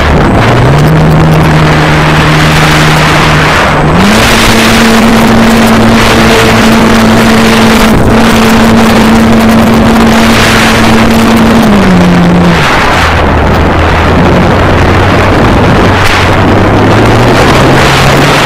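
Onboard sound from a camera riding on a foam RC glider in flight: loud wind rush over the microphone, with the steady hum of the model's motor. The hum steps up in pitch about 4 s in, drops about 12 s in, and rises again near the end as the throttle changes.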